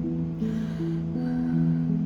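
Slow instrumental background music: plucked guitar notes moving from one held note to the next.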